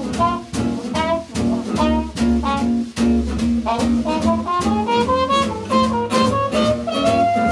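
Swing jazz band of trumpet, guitar, bass and drums playing an instrumental chorus over a steady swing beat. The trumpet climbs in a rising phrase and lands on a long held note near the end.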